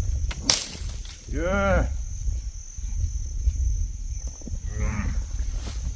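A cowhand's short, loud shout at a cow about a second and a half in, then a fainter call near five seconds, over a steady low rumble.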